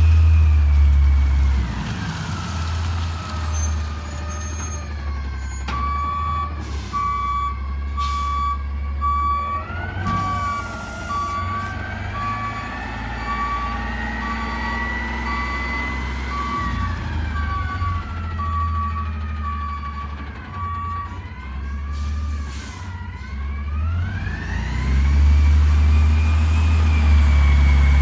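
Freightliner M2 garbage truck with an Amrep automated side-loader body manoeuvring, its natural-gas engine running with a high whine that rises and falls as it turns. Its reversing alarm beeps about once a second from about six seconds in until about twenty seconds, while it backs up. The engine is loudest at the start and the end, when the truck is closest.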